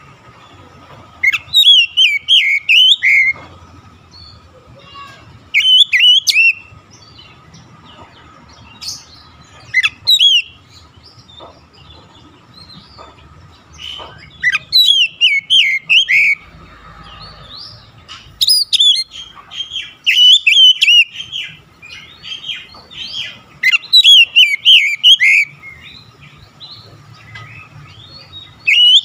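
Oriental magpie-robin (kacer) singing: loud bursts of quick, varied whistles and chattering notes, each phrase a second or two long, repeated every few seconds.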